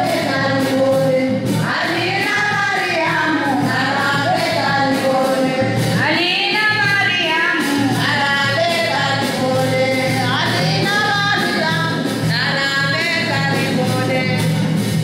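A group of women singing together, with a steady percussion beat underneath.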